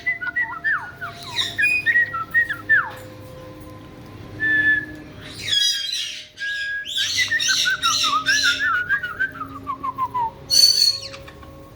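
Caique parrots whistling in short sliding notes and giving harsh squawks, with a run of falling whistles partway through and a shrill screech near the end.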